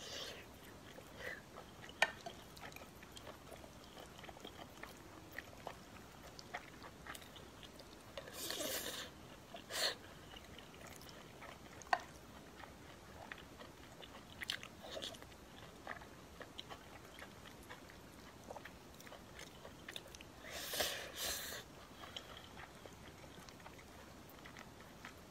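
Close-miked chewing and soft mouth noises of someone eating braised pork belly with rice, with a few sharp clicks of a spoon against a glass bowl and two longer, louder noisy sounds partway through.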